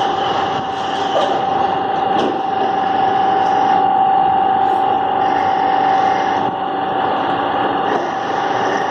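Heavy metal lathe running steadily while machining an eccentric crankshaft, with a constant whine over a rough cutting noise.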